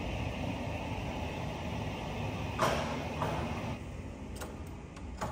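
A steady rush of water in a ship's public bath. About two and a half seconds in, a sliding door opens with a sharp rattle and a second knock half a second later, and then the rush falls away.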